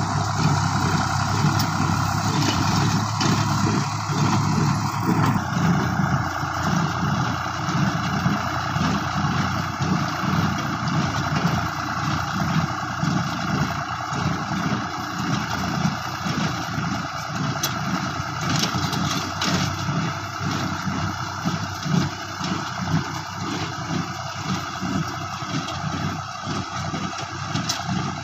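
A New Holland tractor's diesel engine running under load while it drives a New Holland small square baler. The baler is picking up dry sugarcane leaves and packing them into bales, with a steady rhythmic beat from the machinery.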